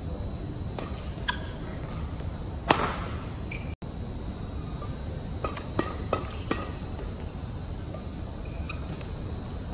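Badminton rackets striking a shuttlecock during rallies, sharp single hits over a steady hall background with a faint constant high hum, the loudest hit a little under three seconds in. After a brief dropout just before four seconds, four quick hits follow in close succession around six seconds in.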